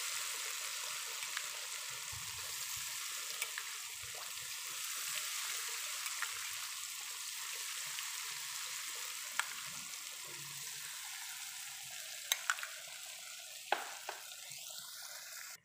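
Battered banana pieces (pisang goreng) deep-frying in hot oil in a wok, with a steady sizzle. A few sharp ticks come near the end.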